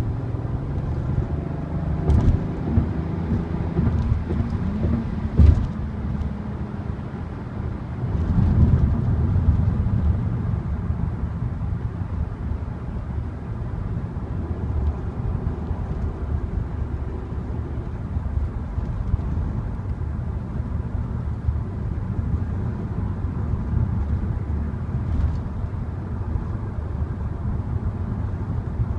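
Volkswagen Passat R36's stock 3.6-litre VR6 engine and exhaust under way, rising in pitch as it accelerates near the start and getting louder again about eight seconds in, then a steady low drone with road rumble.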